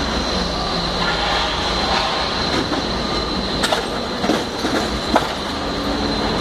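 Propane forklift running with a steady machine noise and a faint high whine. Between about three and a half and five seconds in come a few sharp clinks and knocks as the stacked crates of glass beer bottles shift.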